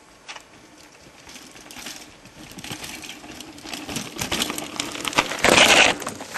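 Mountain bike rattling and clicking over rocky ground, growing louder as it comes closer, with a loud rush of noise about five and a half seconds in.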